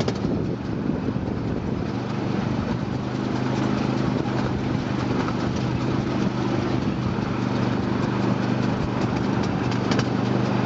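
Miniature train's engine running with a steady hum as the ride rolls along, with a few sharp clicks near the start and near the end.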